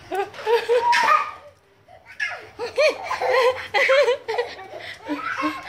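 Young children laughing and giggling in short runs, breaking off briefly about a second and a half in before the laughter picks up again.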